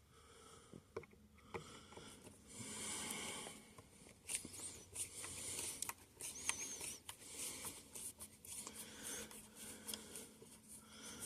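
Light clicks, taps and scraping of hands working on guitar parts during disassembly, with a faint high warbling squeak twice.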